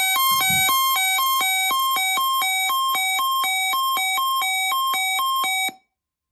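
Weather radio receiver's alert alarm sounding for a weekly test: a hi-lo two-tone electronic beeping that alternates about three to four times a second, then cuts off abruptly near the end.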